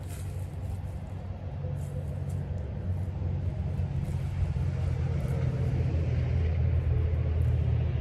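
Low engine rumble of a passing motor vehicle, growing louder over several seconds and starting to ease near the end.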